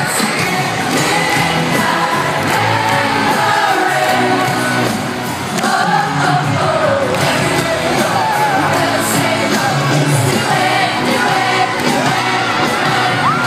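Pop band playing live through a stadium sound system with lead vocals, and a large crowd singing along and cheering.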